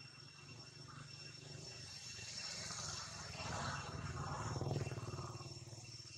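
Steady, high insect drone, with a low rumble that swells to its loudest about four to five seconds in and then fades away.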